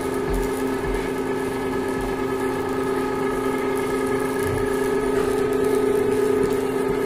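Tabletop stone wet grinder running steadily, its motor hum a constant drone with a few fixed tones as the stone rollers churn thick almond butter in the spinning drum.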